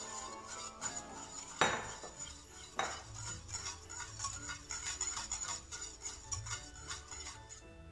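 Metal wire whisk beating a milk and egg-yolk mixture in a stainless steel saucepan, its wires clicking rapidly against the pan, with two louder knocks about one and a half and three seconds in.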